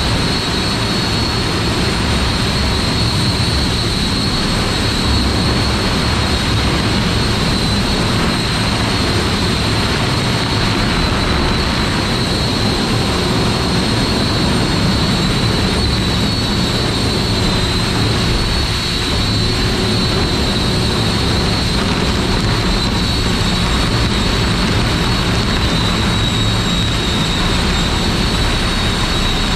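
A wind machine built from several electric ducted fans runs steadily. It gives a constant high whine over a loud rush of blown air.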